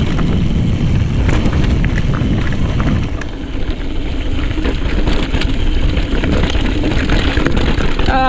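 Mountain bike riding fast over rocky trail: wind buffeting the microphone in a steady low rumble, with the bike's frame, chain and parts rattling and knocking over the rocks in scattered clicks.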